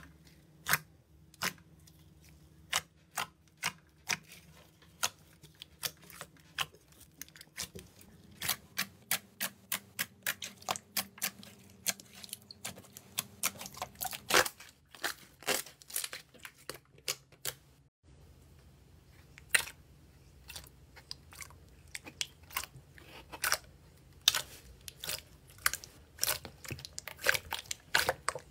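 Hands squeezing and pressing slime, making a run of sharp, wet clicks and pops as trapped air bursts, several a second and irregular, densest in the middle with a short lull partway through.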